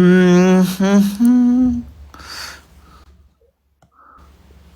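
A person humming three held notes over about two seconds, the last one higher, followed by a short breathy sound.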